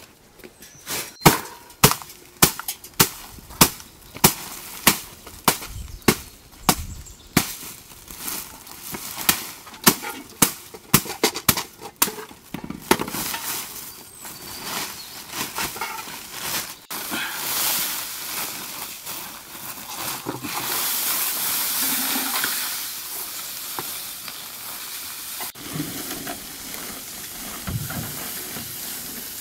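A run of sharp knocks, about two a second, for the first ten seconds or so. Then the crinkling rustle of a large woven plastic sack being opened and handled, and near the end its contents being emptied into a plastic bucket.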